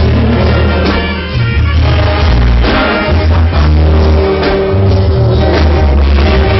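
Banda sinaloense brass band playing live and loud. A low, stepping tuba bass line runs under held horn notes.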